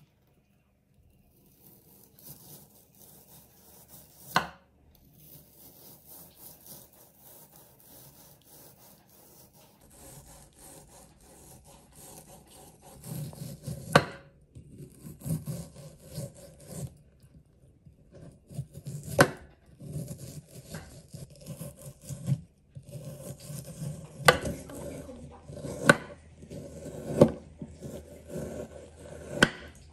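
Kitchen knife slicing thin strips off a block of marinated chicken thighs, each stroke a rasping cut through the meat, with a few sharp knocks of the blade on the wooden cutting board. The strokes grow louder and come closer together after about ten seconds.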